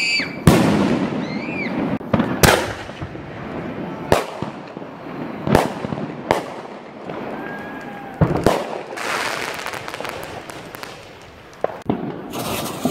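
Consumer fireworks artillery shells going off: a series of sharp bangs one to two seconds apart, with a crackling hiss about nine seconds in and again near the end.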